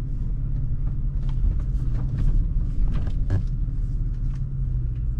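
Toyota FJ Cruiser crawling over a rough dirt trail, heard from inside the cabin: a steady low rumble from the engine and tyres, with scattered knocks and rattles as the wheels go over rocks and ruts.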